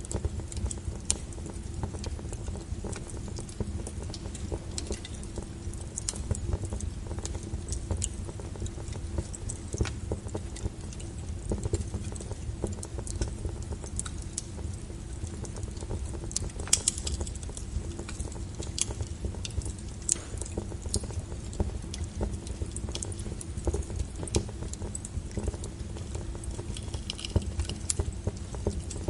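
Wood fire burning with a low steady rumble and irregular crackles and pops, one louder snap about two-thirds of the way through.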